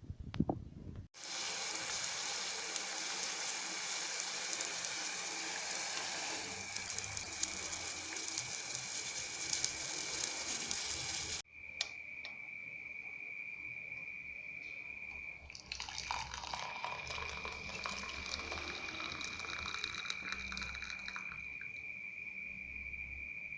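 Water running, in two segments with an abrupt cut between them about 11 seconds in. A steady high-pitched tone sounds through the second part, with some clicking in its middle.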